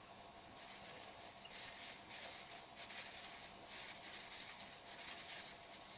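Crochet hook and yarn rustling as single crochet stitches are worked: a run of faint, soft scratchy swishes, roughly one to two a second, each as the hook pulls the yarn through a stitch.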